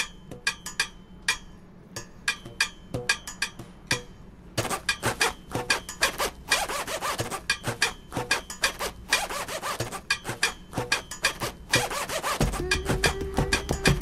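An improvised rhythm of sharp taps and knocks on hard objects. About four and a half seconds in it grows denser, with scraping mixed in. Near the end a low bass and a held tone join the beat.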